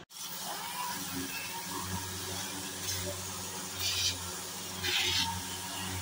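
Orbital sander running steadily while it smooths body filler on a car's rear quarter panel, with two short bursts of harsher sanding hiss about four and five seconds in.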